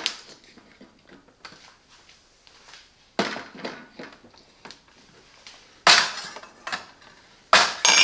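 Glassware and dishes clinking and knocking: a few sharp knocks with a short ringing after them, about three seconds in, near six seconds and again near the end, with light rattling between.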